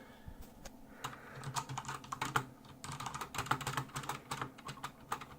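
Typing on a Logitech G710+ mechanical keyboard with Cherry MX Brown tactile switches. A few scattered keystrokes at first, then a quick run of key clacks from about a second in.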